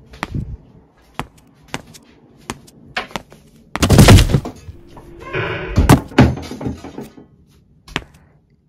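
A string of sharp hits and knocks, loosely spaced, with a loud crashing burst about four seconds in and a second cluster of hits shortly after; the sounds die away near the end.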